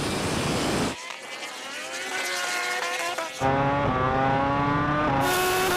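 Drag-racing vehicles accelerating at full throttle, their engine and motor pitch climbing steadily. The sound changes abruptly twice, with a rush of noise at the start.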